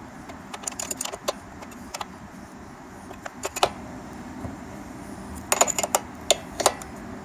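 Scattered light metallic clicks and clinks of hand tools and small parts being handled, with a quick flurry of them near the end.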